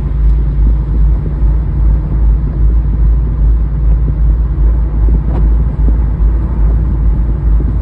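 Engine and road noise of a 2001 Jaguar Vanden Plas V8 cruising at about 60 mph, heard inside the car: a steady, uneven low rumble. The engine is labouring with a misfire that the owner cannot pin down, suspecting bad plugs, scored cylinder walls or bent valves.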